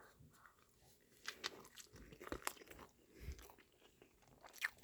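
Faint close-up mouth sounds of someone biting into and chewing a reheated breakfast burrito: scattered clicks and short wet smacks with quiet gaps between them.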